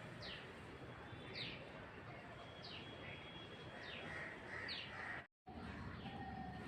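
A bird calling faintly: a series of short notes, each sliding down in pitch, about one a second, over steady outdoor background noise.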